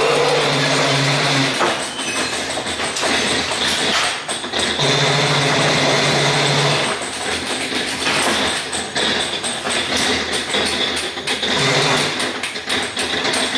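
Ghost-train car rattling and clattering along its track, with a low motor hum that comes and goes in stretches.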